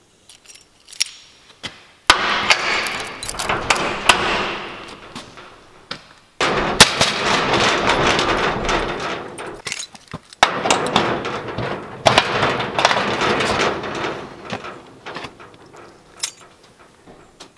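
Metal clattering and rattling with sharp clinks, in three long stretches that each start suddenly and die away over a few seconds.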